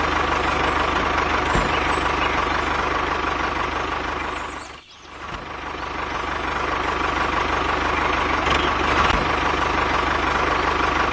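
Tractor engine running steadily with a knocking idle, fading out briefly about halfway through and then picking up again.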